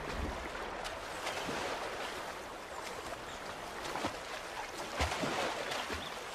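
Flowing, rushing river water, with a few short splashes.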